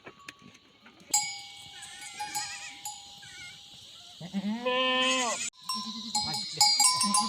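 Goats bleating among the clinking and ringing of their neck bells. One long bleat comes about four seconds in, with more bleats near the end.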